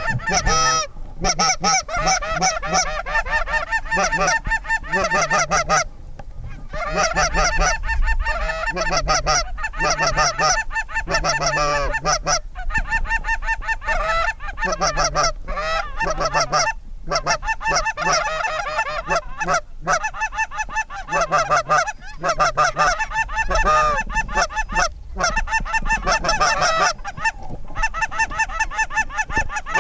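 Goose honking, many calls overlapping almost continuously, with a few brief lulls.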